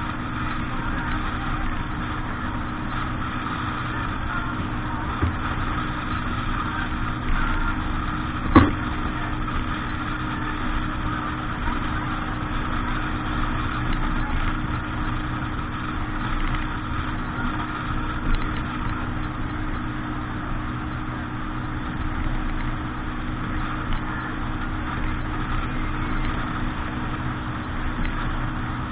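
Motorboat engine running steadily at a constant speed. A single sharp knock comes about eight and a half seconds in.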